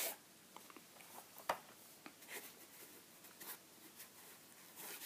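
Faint rustling and scraping of a white cardboard box and insert as a small rubber-armoured Bluetooth speaker is worked out of it by hand, with scattered small clicks and one sharper click about a second and a half in.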